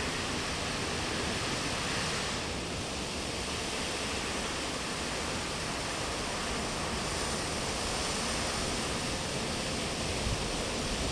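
Fountain jets spraying and water splashing down onto the paved square, a steady, even rush of falling water.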